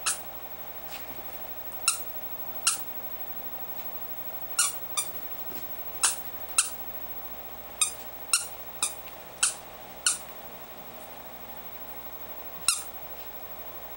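Squeaky plush toy being chewed by a Schipperke puppy: about a dozen short, high squeaks at irregular intervals, some coming in quick pairs.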